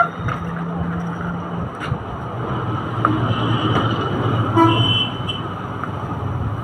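A vehicle engine drones steadily and a horn sounds briefly about halfway through. Over it come a few light clicks and rustles of the walker's plastic tray and fabric seat being handled.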